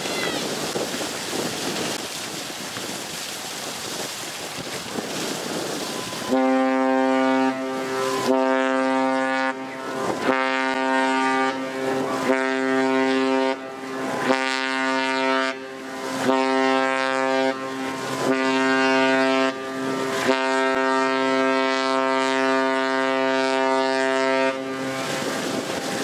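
Ship's horn of the Cunard liner Queen Mary 2 sounding one long, deep, steady blast. It comes in about six seconds in after steady background noise and holds for about eighteen seconds, wavering briefly every couple of seconds before it stops near the end.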